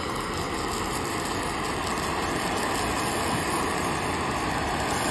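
Handheld gas torch (a 'fire gun') running with a steady rushing hiss, heating and melting butter on a plate of dhokla.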